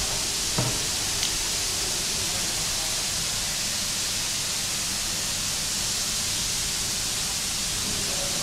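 Steady, even hiss, with a soft knock about half a second in and a faint tick just after a second.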